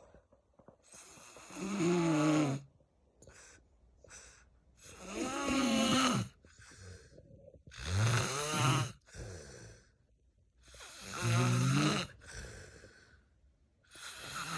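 A person snoring in a steady rhythm: five snores about three seconds apart. Each is a pitched snore about a second long, followed by a shorter, fainter breath.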